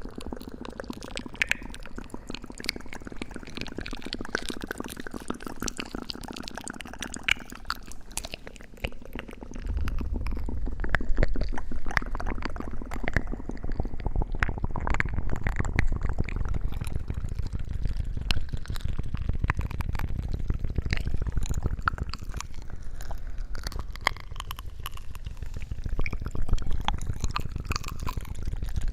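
Close-miked ASMR sounds: dense wet crackling and squishing right against the microphone, getting heavier and deeper from about ten seconds in.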